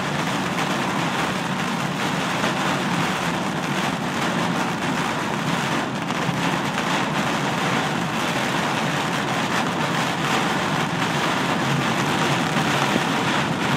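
Heavy rain pelting a car's roof and windshield, heard from inside the moving car, a steady unbroken rush with tyre noise from the wet road beneath it.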